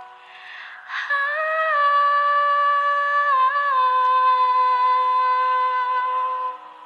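A woman's singing voice holds one long final note over faint backing music. The note starts about a second in, dips briefly in pitch midway and stops shortly before the end.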